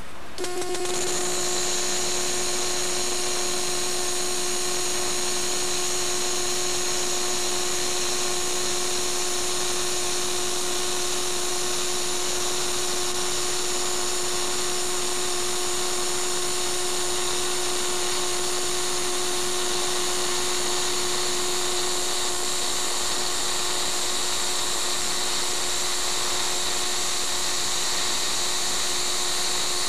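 MIG welding arc in short-circuit transfer on thin 1/16-inch plate, set at 17–18 volts for a spatter-free weld. The arc strikes just after the start and then runs as a steady, even hiss with a constant tone underneath.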